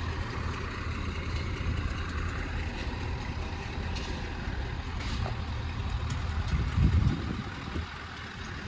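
A vehicle engine running steadily at idle, a low even hum, with a brief louder surge about seven seconds in.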